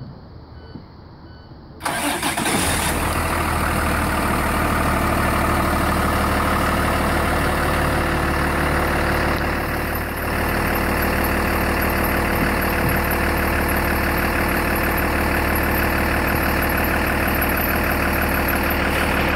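Cold start of a 2019 IC CE school bus's Cummins ISB six-cylinder diesel. About two seconds in, the starter cranks briefly and the engine catches almost at once, then settles into a steady idle.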